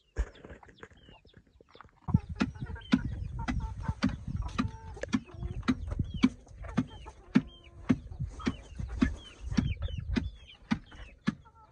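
Two wooden pestles pounding in turn in a large wooden mortar, thudding about twice a second from about two seconds in. Hens cluck throughout.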